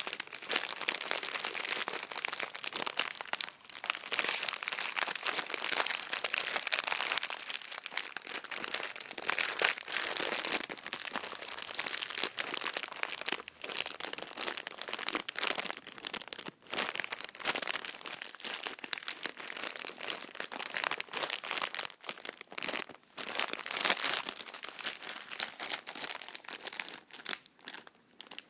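Plastic packaging crinkled and scrunched by hand, a continuous dense crackle with a few brief pauses.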